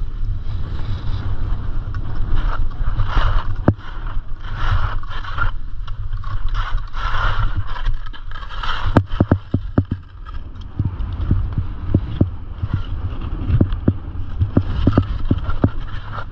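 Wind buffeting an action camera's microphone during a fast ski descent, with the hiss and scrape of skis carving packed snow in repeated surges. A run of sharp knocks comes in the second half.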